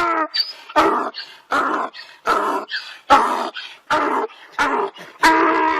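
A dog barking over and over in a steady rhythm, about one bark every three-quarters of a second, ending in a longer drawn-out call near the end.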